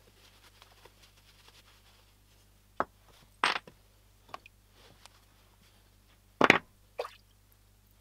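Faint cloth rubbing as wet cast-iron coffee grinder parts are dried, then about half a dozen sharp knocks and clunks as the metal parts are set down on the bench, the loudest a little past the middle.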